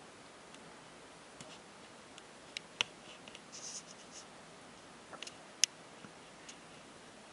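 Quiet hiss with a handful of sharp little clicks and brief scratchy rustles, two of the clicks louder than the rest, near the middle.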